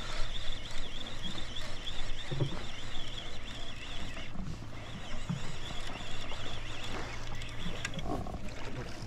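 Steady low hum of a boat's engine idling on calm water, with a high, wavering shrill sound over it that breaks off briefly about four seconds in and again near the end, and a few soft knocks.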